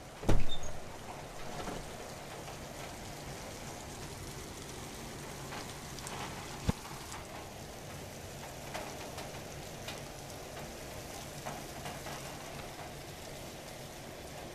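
Rain falling steadily during a thunderstorm. About a third of a second in, a sudden loud crack of close thunder dies away over about a second. A single sharp click follows a few seconds later.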